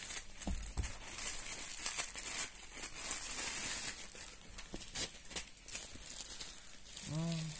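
Plastic packaging crinkling and rustling: a plastic mailer bag being cut with scissors, then a clear plastic bag holding a fishing keep net being handled, with scattered small clicks. Near the end there is a brief hum, like a short vocal "mm".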